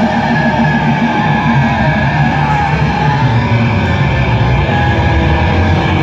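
Live metal band playing loud and without a break: distorted electric guitars, bass guitar and drums.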